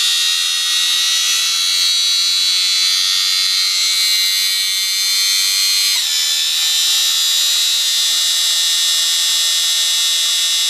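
Vacuum-cleaner universal motor, run as a pulse motor from a 12 V battery, running with a loud, steady high-pitched whine. About six seconds in its pitch drops abruptly as the lamp load is switched on and the motor bogs down.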